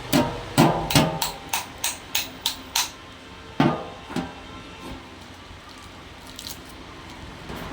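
A run of sharp taps or knocks, about three a second for roughly three seconds, then two more single knocks and a quiet background with a few faint ticks.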